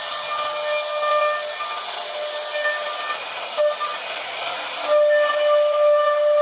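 CNC router spindle running with a steady high whine over a hiss of cutting noise as the bit works through the material; the whine comes back louder about five seconds in.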